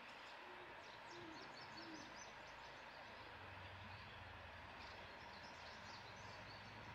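Faint outdoor ambience over a steady hiss. Three short low calls come in the first two seconds, and scattered short high chirps come twice.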